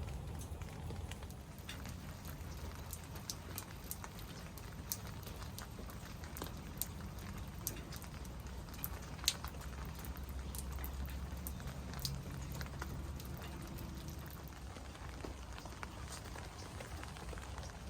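Rain falling, with many scattered individual drops ticking and pattering on nearby surfaces over a steady hiss and a low rumble underneath.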